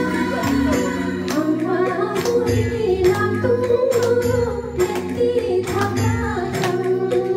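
Two women singing a duet into microphones over amplified music with a steady beat.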